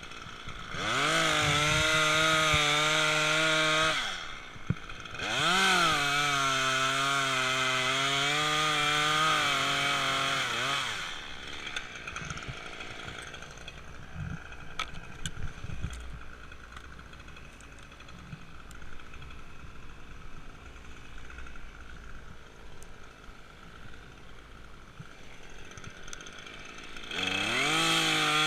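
Two-stroke chainsaw run at high revs in two spells of several seconds, with a brief drop between them, its pitch sagging slightly as it works. It then falls to a much quieter stretch with light scattered clicks and crackles, and revs up again near the end.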